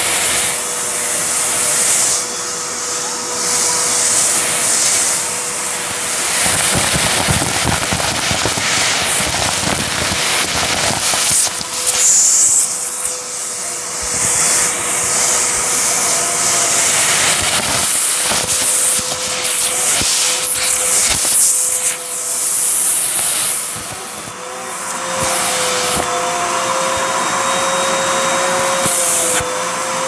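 Hoover vacuum cleaner running steadily close to the microphone: a loud rush of air with a steady whine underneath, broken by irregular rustling and rattling.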